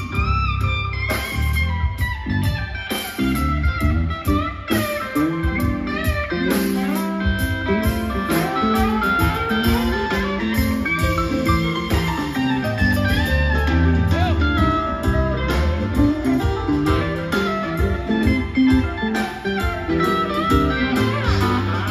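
Live rock band playing an instrumental passage: an electric guitar lead with bent notes over bass guitar, drums and keyboards.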